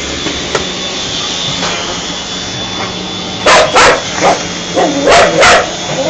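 A vacuum cleaner runs steadily, and about halfway through a dog starts barking at it: about five loud, sharp barks, mostly in quick pairs, louder than the vacuum.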